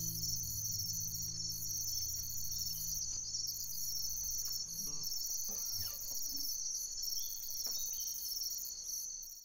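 Continuous high-pitched chorus of chirping insects, like crickets, with a low sustained musical note fading out underneath about halfway through; the chorus cuts off suddenly at the end.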